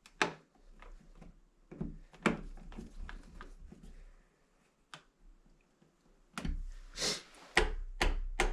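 Scattered light clicks and knocks of hands handling a wall switch and its hardware, then louder scuffs and thumps over the last two seconds.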